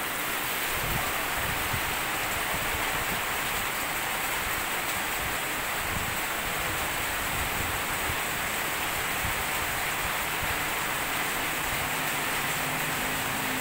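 Steady, unbroken drone of a large swarm of giant honey bees flying around their comb, stirred up by the honey harvest.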